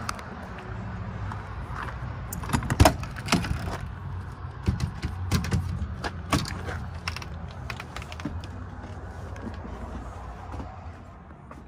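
Clicks, knocks and creaks of a motorhome's side entry door being unlatched and opened, loudest about three seconds in, over a steady low rumble.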